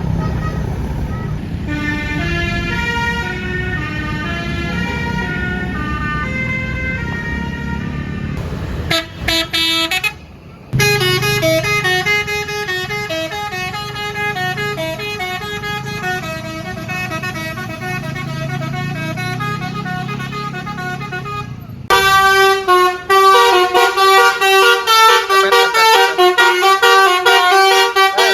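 A basuri telolet bus horn plays fast melodies of stepped, pitched notes. There are three passages, broken about nine and twenty-two seconds in, and the last one is louder. A low rumble runs under the first two.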